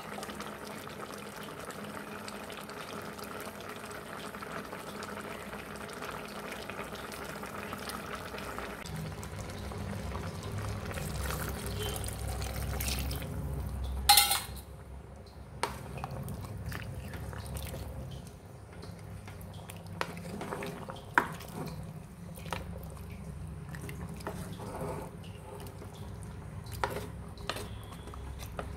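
Curry simmering and bubbling in a metal pot. About halfway through there is one sharp clack, then scattered knocks and scrapes of a spoon against the pot as the curry is stirred.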